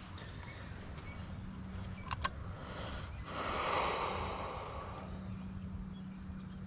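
Bass boat's bow-mounted electric trolling motor humming steadily. A couple of small clicks come about two seconds in, and a brief rush of noise swells up and dies away midway.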